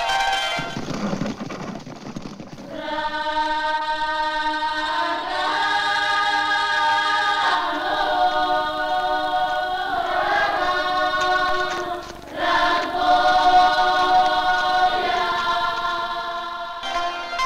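Soundtrack music: a choir singing long held chords, the voices moving to a new chord every couple of seconds. The choir comes in about three seconds in, after a brief noisy stretch, and drops out for a moment about twelve seconds in.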